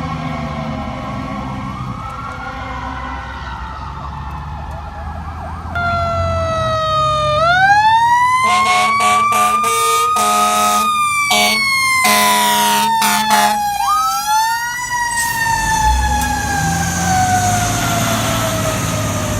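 Fire truck siren wailing: at first faint and falling, then loud, rising and slowly winding back down. It is punctuated by a string of heavy air horn blasts, short and long, in the middle. A deep truck engine rumbles underneath.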